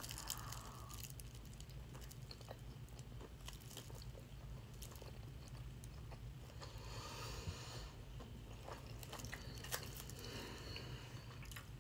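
A person biting into a soft, untoasted burrito, then chewing it faintly, with small wet mouth clicks.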